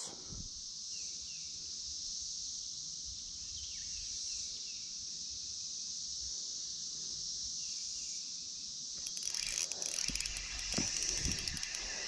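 Insects buzzing steadily in a high, even band, with a few faint short falling chirps. About nine seconds in, a spell of rapid clicking and rustling handling noise starts.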